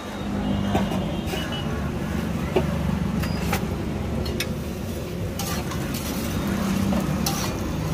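A motor vehicle engine running close by, a steady low hum that sets in suddenly at the start. Over it come a few light metallic clicks of a spatula on the iron griddle.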